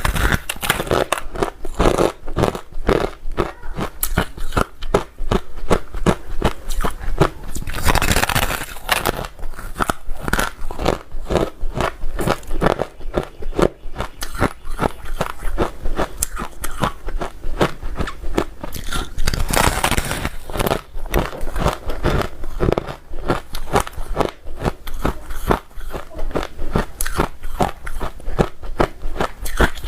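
A person biting and chewing ice, with rapid, continuous crunching.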